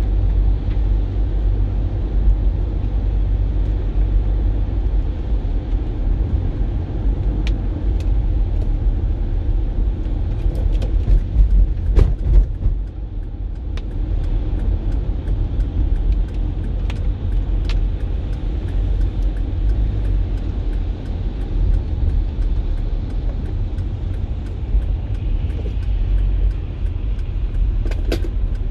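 Steady low road rumble of a car driving on wet streets in the rain, heard from inside the cabin, with an even wash of rain and tyre spray and scattered sharp ticks. The rumble swells briefly a little before halfway.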